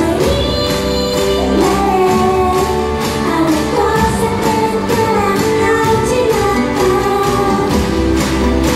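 Live J-pop concert music heard from the audience: a woman singing over loud amplified backing with a steady beat.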